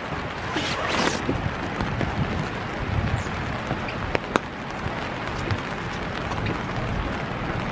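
Steady light rain falling, with a few sharp drip clicks, two of them close together past the middle, and a brief louder hiss about a second in.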